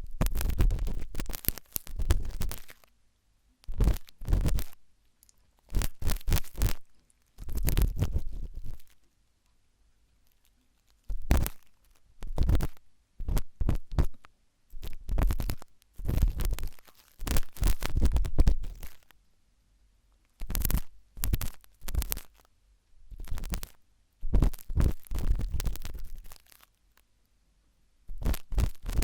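Close-up scratching and scraping of a sharp toothpick in ear-cleaning ASMR, in about a dozen strokes of a second or two, each with a deep rumble under the scratch and short silent pauses between them.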